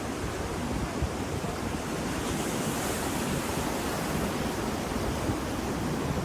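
Ocean surf washing in a steady rush of noise, with the hiss swelling about two to three seconds in as a wave breaks.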